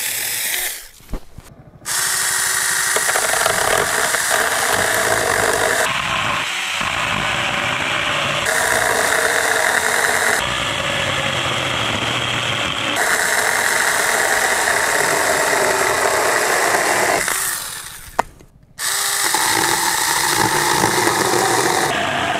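Saker 20 V battery-powered mini chainsaw running and cutting through wood, its electric motor whine mixed with the chain biting into the timber. It winds down and stops twice, about a second in and again near the end, each time starting up again abruptly.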